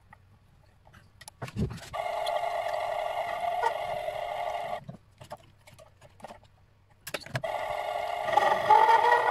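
Mini-lathe's electric motor starting up about two seconds in and running with a steady whine, stopping just before five seconds, then starting again about seven seconds in and running louder and rougher near the end. A few clicks and a low thump come before the first start.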